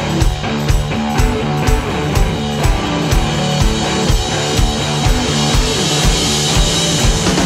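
Rock music with a drum kit keeping a steady beat of about two hits a second.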